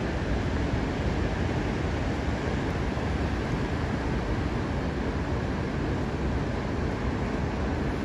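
Heavy surf breaking and washing up the beach, a steady unbroken noise, with wind rumbling low on the microphone.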